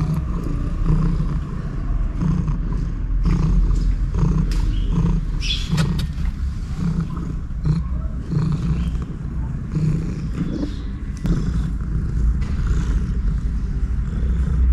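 A cat purring loudly close to the microphone: a steady low rumble that pulses a little over once a second.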